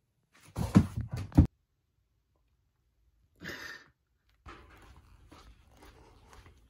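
A cluster of heavy knocks and rustles from a body moving on a yoga mat and foam roller during stretching and push-ups, then a short breathy rustle. From about four and a half seconds, a run of quick, light footsteps on asphalt over a low outdoor rumble.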